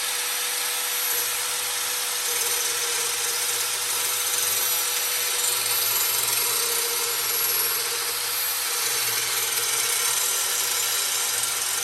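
Chicago Electric 4-1/2-inch angle grinder running steadily with a grinding wheel, grinding the edge of a steel lawnmower blade: a continuous hiss with a steady whine.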